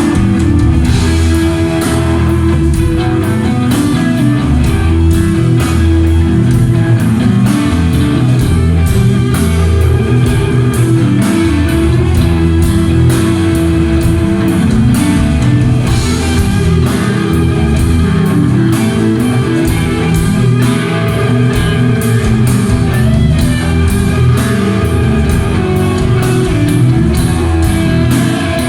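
Heavy metal band playing live: distorted electric guitars over bass and a fast, steady drum-kit beat, with no vocals.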